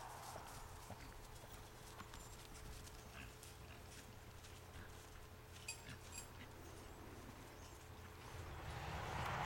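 Faint hoofbeats of a Pony of the Americas mare moving on grass under a rider, with a rising rush of noise near the end.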